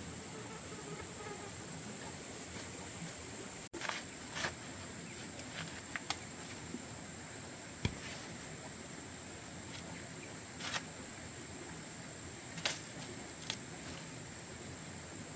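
A steady high-pitched insect drone over a background hiss, with scattered light clicks and rustles, the sharpest a little before 8 seconds in and a little before 13 seconds in.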